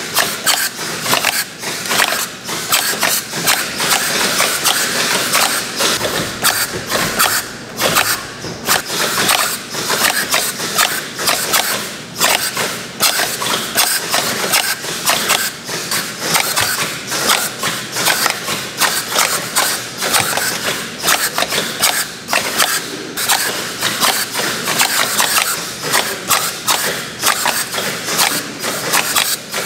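Production-line machinery in a kimchi factory clattering and rattling without pause, a dense run of rapid clicks.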